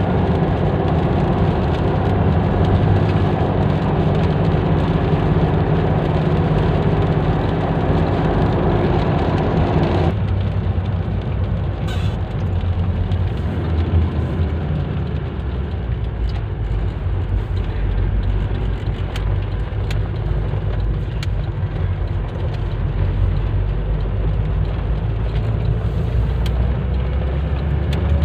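Car driving on rain-soaked roads: steady engine and road noise with tyre hiss. About ten seconds in the sound changes abruptly and becomes duller.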